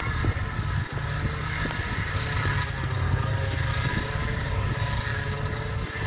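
Snowmobile engine running steadily.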